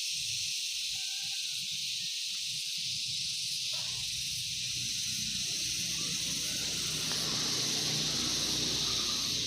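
Steady high-pitched hiss with a low hum beneath it, with no distinct events.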